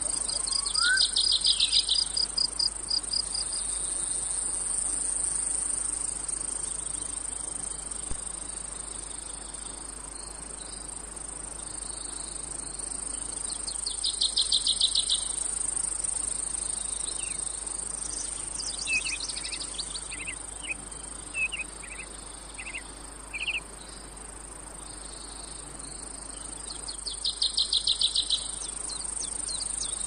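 Cicadas: a steady, high-pitched insect drone, with a louder burst of rapid pulsing about every 13 seconds, near the start, in the middle and near the end. A few short high chirps break in about two-thirds of the way through.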